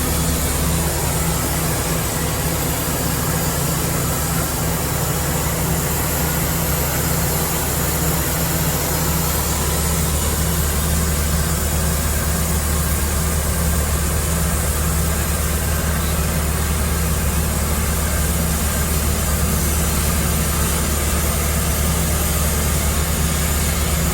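Sawmill's engine running steadily at an even pitch, with no let-up or change.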